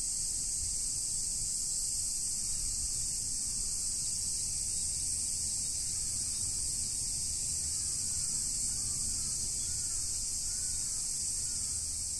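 A steady, high-pitched chorus of insects, with a low steady rumble underneath and a few faint bird chirps from about eight seconds in.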